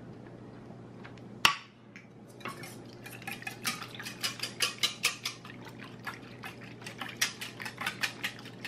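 A sharp metal clank about one and a half seconds in, the loudest sound, then a wire whisk beating eggs and milk in a stainless steel bowl, its tines clicking against the steel several times a second.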